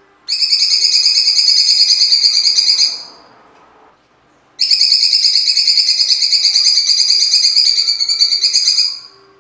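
Cucak cungkok (blue-winged leafbird) singing two long bursts of fast, harsh, rapidly repeated high notes, each lasting about three to four seconds, with a short pause between them.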